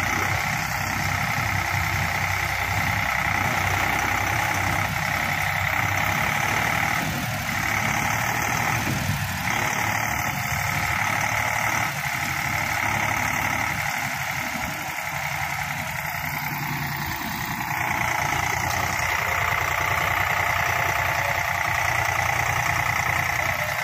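Eicher 485 tractor's three-cylinder diesel engine running steadily under heavy load as it pulls a sand-loaded trolley bogged in soft sand, with a slight easing twice.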